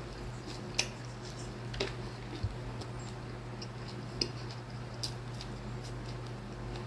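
Eating noises: a few scattered small clicks and wet smacks from someone chewing, over a steady low hum.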